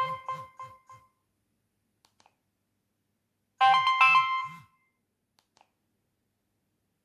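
Nokia 3120 ringtone: a short electronic phrase of several notes over a low beat ends about a second in, and after a pause of about two and a half seconds the same phrase plays again, looping with silent gaps between.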